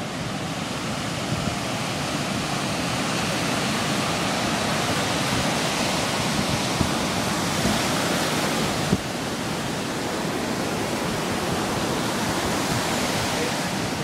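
Big ocean waves breaking and washing up a sandy beach: a steady, continuous rush of surf and foam, dropping slightly in level about nine seconds in.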